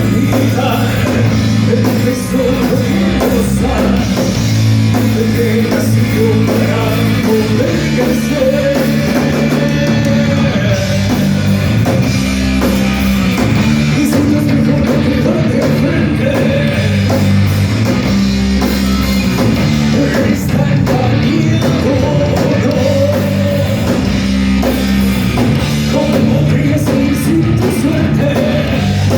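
A heavy metal band playing live at full volume, with distorted electric guitars and drums.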